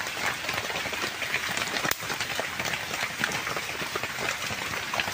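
Steady rain falling, with many small drop hits.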